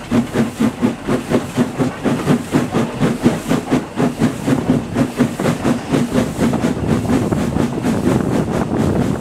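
Steam locomotive running along the line, its exhaust beats coming evenly at about four a second, then blurring into a steadier rush in the last few seconds. The wheels running on the rails and wind on the microphone are heard under the beats.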